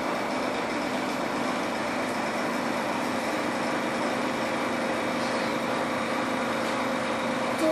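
A steady mechanical hum, like a running motor, with faint steady tones in it and no other events.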